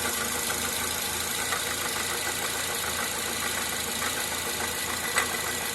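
Toyota Corolla engine running with the accessory belt on, making a strong knock that sounds like a connecting rod knocking. The knock goes away with the belt off, and the owner blames the 1.5-year-old non-original water pump.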